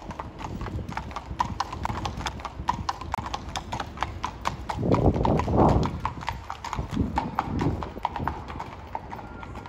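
Carriage horses' hooves clip-clopping on the paving in a steady walking rhythm, a few strikes a second, with a louder swell of low noise about halfway through.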